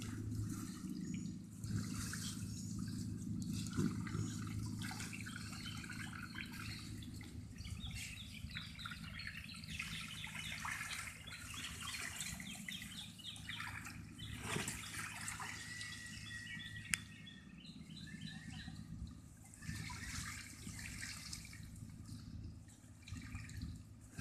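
Water spilling and trickling out over the folded-down side wall of an inflatable pool, with birds chirping throughout and most busily in the middle.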